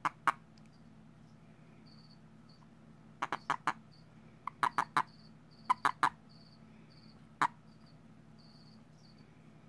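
Male black-spectacled (Asian common) toad held in the hand, giving short sharp chirps in quick bursts of three or four, a few times over; this is the release call a male toad gives when grasped. Faint high cricket chirps repeat in the background.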